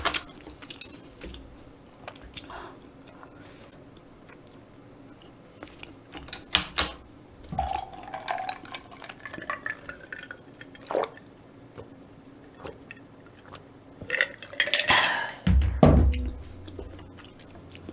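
Drinking from a glass jar of dark drink: clicks and clinks of glass, liquid and swallowing sounds, then a heavier knock as the jar is set down on the table near the end.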